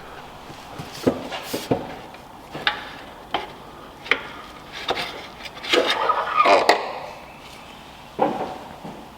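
Metal hand tools clinking and knocking while the stock shifter linkage bolts are taken off: a string of separate clanks, with a busier cluster about six seconds in.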